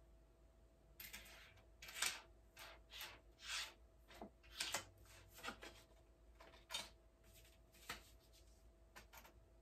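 Faint, irregular rustling and light knocks of small household items being picked up, shifted and set down on a dresser top. There is a string of short handling sounds, about one or two a second, starting about a second in.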